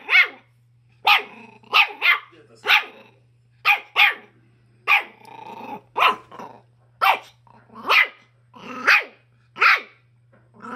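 Schipperke barking repeatedly: about fifteen short, sharp barks, some in quick pairs, with one longer, rougher bark about halfway through.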